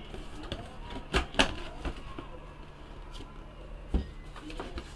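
Cardboard box handled on a tabletop: two knocks about a second in, small rubbing clicks, and a thump at about four seconds as it is stood on the table, over a low steady hum.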